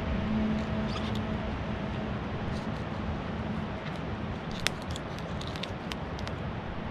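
Filleting knife working through a flathead on a plastic cutting board: small scratches and clicks, one sharper click about two-thirds in, over a steady background rumble with a low hum during the first half.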